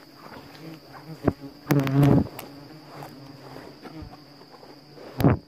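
Yellow-legged hornets buzzing around their opened paper nest. One passes close for a loud half-second buzz about two seconds in. Short knocks come at about one second in and near the end.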